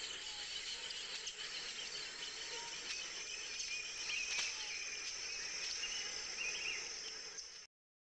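Insects buzzing steadily at a high pitch, with scattered bird chirps over them. It all cuts off suddenly near the end.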